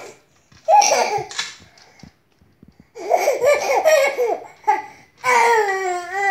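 Baby laughing in several bursts of quick, high-pitched giggles, the longest about three seconds in, then a long, high call that slowly falls in pitch near the end.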